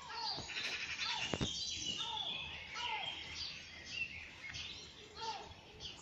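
Many birds singing and chirping at once in a morning chorus, with short falling notes repeating every second or so over a busy mix of higher chirps. A single sharp click comes about one and a half seconds in.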